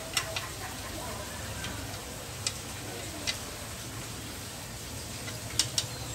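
Sharp metal clicks and taps, a few seconds apart with a quick pair near the end, as the vise clamp on an angle grinder stand is worked by hand, over a low steady hum.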